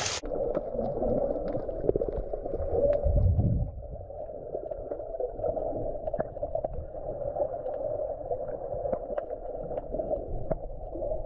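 Muffled underwater sound picked up by a submerged camera: a steady watery hiss with scattered sharp clicks and crackles, and a louder low rumble about three seconds in.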